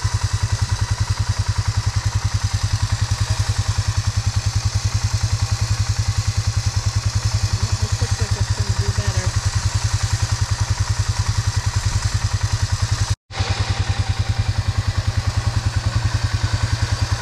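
Polaris Sportsman 570 ATV's single-cylinder engine idling steadily with an even, rapid low pulse. It cuts out for an instant about thirteen seconds in.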